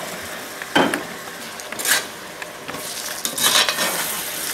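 Wine sizzling in a hot pot of browned beef and vegetables as it is deglazed, with a metal slotted spoon stirring and scraping the bottom in several strokes over a steady sizzle.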